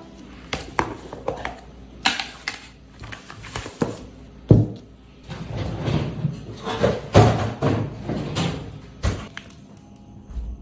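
Plastic food-storage containers and their lids being handled and set down on a table: a series of irregular knocks and thunks, the loudest about four and a half and seven seconds in.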